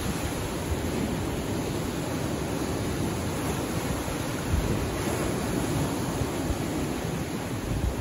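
Small waves of a calm sea washing against a rocky shore in a steady surf wash, with a couple of brief low surges about halfway through and near the end.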